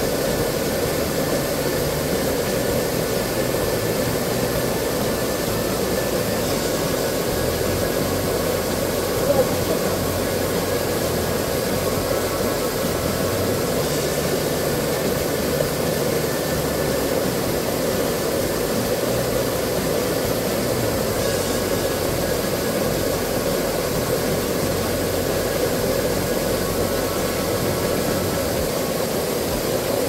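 Steady rush of a rocky mountain stream, water running over stones in an even, unbroken noise.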